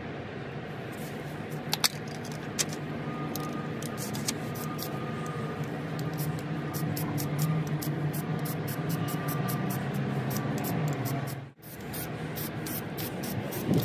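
Rust-Oleum primer spray can being shaken, its mixing ball rattling in a fast run of clicks over a steady low hum. After a cut near the end, the aerosol hisses as primer is sprayed.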